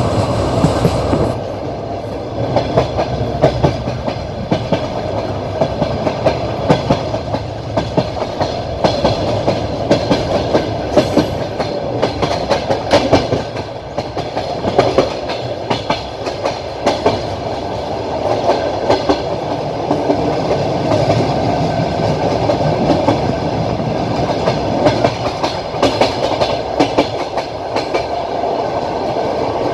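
Train wheels clacking over rail joints at speed, heard from a carriage window, over a steady rumble of running noise.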